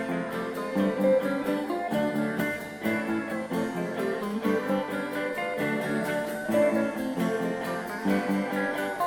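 Background music played on guitar, strummed in a steady rhythm.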